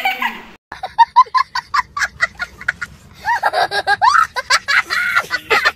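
A young child laughing hard: a run of quick short laughs, about five a second, then long high-pitched squealing laughs.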